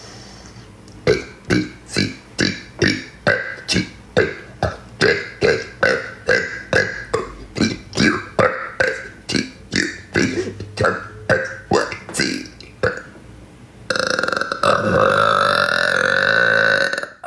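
A woman burping: a rapid run of short burps, about two to three a second, for some twelve seconds, then one long, steady burp lasting about three seconds near the end.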